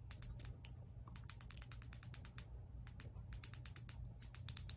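Small plastic control buttons on a ring light clicked rapidly and repeatedly in short runs to step the brightness up and down, over a faint low hum.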